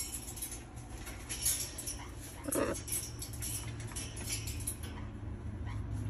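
Blue-and-gold macaw picking at chopped vegetables in a plastic container: scattered beak clicks and crunches, with one short, low vocal sound about two and a half seconds in.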